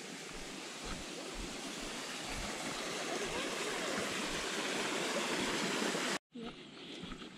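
Steady rush of running water from a stream, growing louder, with soft low thumps of footsteps. It cuts off abruptly about six seconds in, and then come quieter footsteps on the trail.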